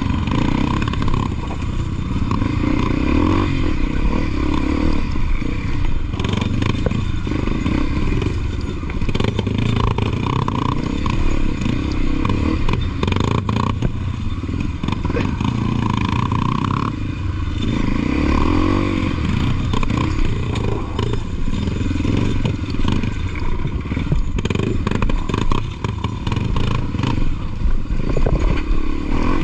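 Trail motorcycle engine running on a dirt ride, its note rising and falling with the throttle, with clattering and knocks from the bike over rough ground.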